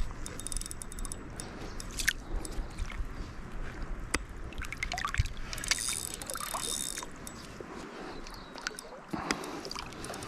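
Fishing reel clicking and ticking irregularly while a hooked rainbow trout is played, with water splashing and sloshing.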